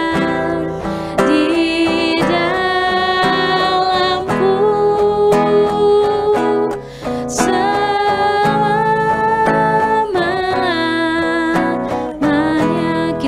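Two women singing an Indonesian worship song in unison into microphones over instrumental accompaniment, with short pauses for breath about seven and twelve seconds in.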